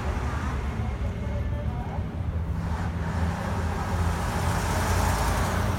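Heavy military trucks driving past in a column: a steady low engine noise that eases slightly about halfway through and builds again as the next truck comes up. Crowd chatter runs underneath.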